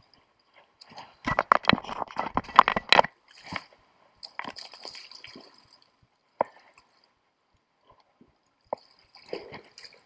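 Irregular scuffs, clicks and wet squishes of someone moving over wet rocks and mud at the river's edge. The busiest stretch is a tight cluster of rapid scrapes and knocks in the second and third seconds, followed by scattered scuffs and a few single knocks.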